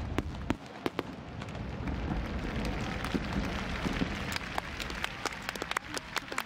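Dense crackling and popping of fireworks mixed with crowd applause that swells in the middle and thins near the end. A low rumble from the bursts dies away in the first half second.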